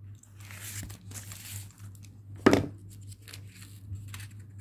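White tulle flower petals rustling and crinkling as they are handled, folded and pressed together by hand during hot-gluing, with one sharp knock about halfway through.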